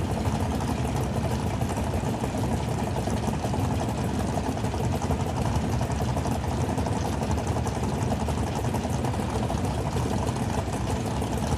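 Dragster engine idling: a steady, loud, choppy rumble that holds level throughout.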